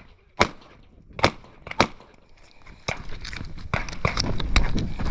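Airsoft pistol firing: three single shots spaced about half a second apart in the first two seconds, then from about three seconds in a stretch of scuffling movement noise with several more shots.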